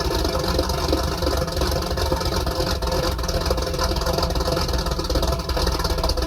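334 cubic-inch stroker small-block Chevy V8 idling steadily and loud, warming up soon after start-up.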